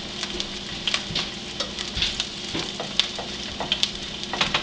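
Bird's nest egg (an egg in a slice of bread) frying in butter in a pan, sizzling steadily with irregular crackling pops.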